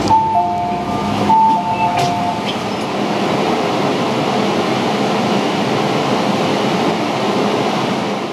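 MTR Metro-Cammell train's door chime at a station stop: a falling two-note tone sounded twice over about two seconds, with a couple of sharp clicks, over the steady hum of the train standing at the platform.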